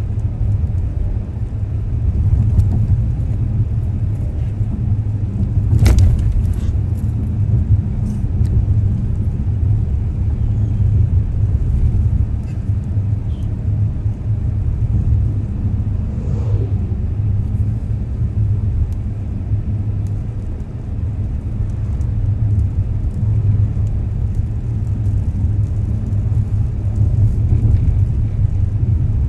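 Steady low rumble of a car on the move, road and engine noise heard from inside the cabin, with a single sharp click about six seconds in.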